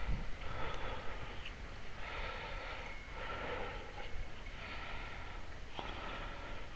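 A man's breathing through the nose, close to the microphone: about five breaths, each roughly a second long, with a faint whistle in them.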